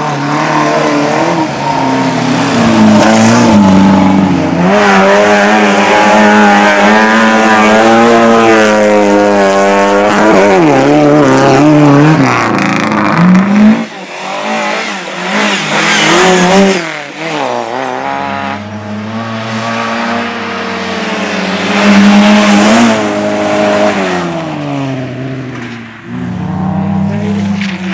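Competition car engines revving hard, the note climbing and dropping through gear changes as the cars pass close by, with brief sharp lifts off the throttle and a few loud passes.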